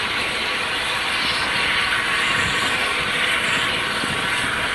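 Steam locomotive 71000 Duke of Gloucester, a BR Standard Class 8P, backing slowly onto its coaches: a steady loud hiss over low rumbling from the moving stock.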